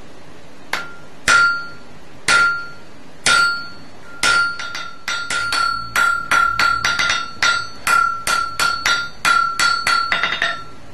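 Hammer blows forging steel, each strike ringing with a clear metallic tone. First come single blows about a second apart, then a quicker, uneven run of about two to three blows a second that stops near the end.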